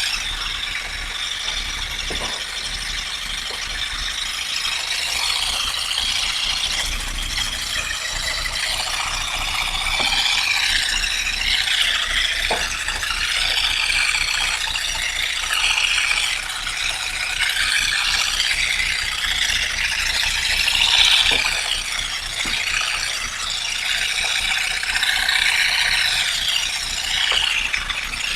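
Continuous dense clattering and rattling from olive harvesting work, shifting in intensity throughout with a few faint knocks.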